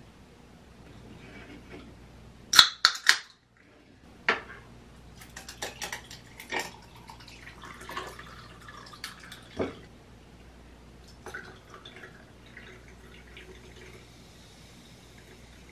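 Drinks being poured in a kitchen. About two and a half seconds in there is a quick run of three sharp clicks. Then come light clinks and knocks of a plastic pitcher and a glass on the counter while juice is poured into the glass, and near the end a can of sparkling water is poured with a faint fizz.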